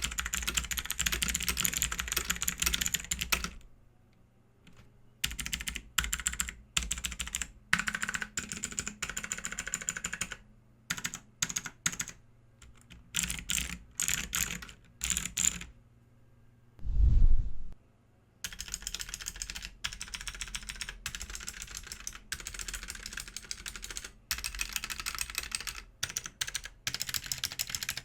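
Typing on a BAJEAL K100 TKL mechanical keyboard with clicky switches, in runs of fast key clicks with short pauses. About seventeen seconds in, a single loud low thud cuts in, and the typing then resumes, now on a desk mat rather than the bare desk.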